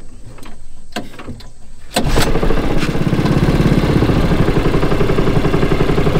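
Predator 212cc air-cooled four-stroke single-cylinder engine being pull-started. It catches about two seconds in, then runs steadily with a fast, even beat.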